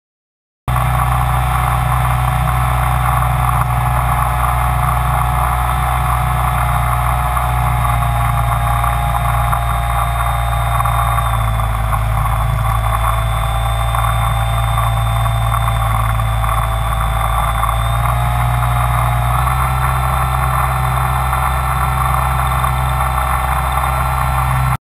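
Camera copter's motors and rotors running steadily in flight, heard from the onboard camera: a constant multi-tone whine that shifts slightly in pitch twice, about 11 and 19 seconds in.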